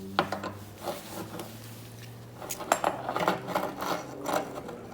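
Metal clicks, clinks and scraping as the sheet-metal access panel over the upper heating element of an old electric water heater is opened and handled. The clicks come scattered at first, then in a quick cluster about two and a half to three and a half seconds in, over a faint steady low hum.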